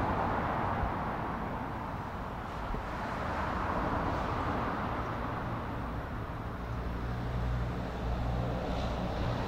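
Outdoor urban ambience of road traffic, a steady rush that swells as vehicles pass. A low engine hum grows stronger from about seven seconds in.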